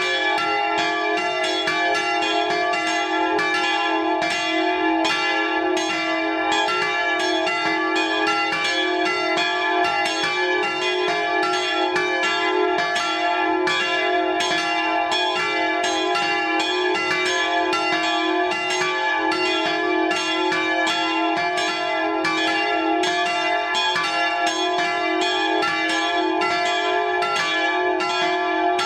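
Swinging bronze church bells pealing together. Their strokes fall several times a second and overlap into a continuous ringing.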